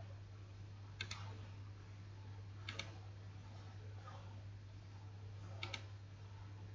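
Computer mouse clicking: a single click about a second in, then two quick double clicks. A faint steady low hum runs under it.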